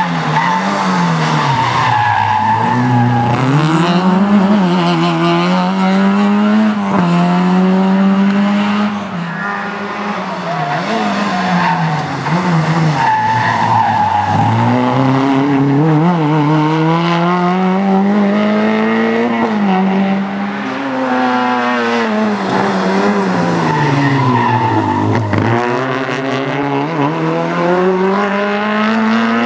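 Autobianchi A112 Abarth rally cars' small four-cylinder engines revving hard through a hairpin, one car after another. The engine note repeatedly climbs, then drops sharply as the drivers lift and change gear.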